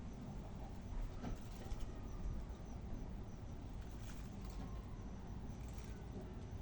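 Faint steady low rumble of outdoor background noise, with a few soft rustles about a second in, around four seconds and near the end.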